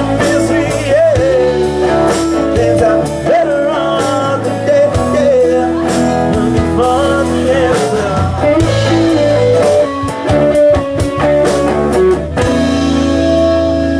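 Live rock band playing amplified: electric and acoustic guitars over a drum kit, with a sung lead vocal.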